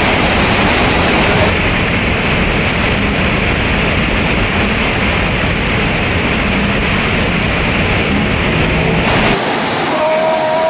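White water rushing over a rocky cascade close by, a loud, steady rushing hiss. The sharpest part of the hiss drops away for most of the middle and comes back near the end.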